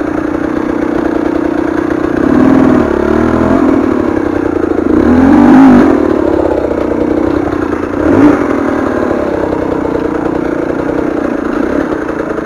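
KTM 300 TPI two-stroke enduro engine running at low revs under constant light throttle. The revs swell and fall back three times: once about two seconds in, most strongly about five seconds in, and as a short sharp blip about eight seconds in.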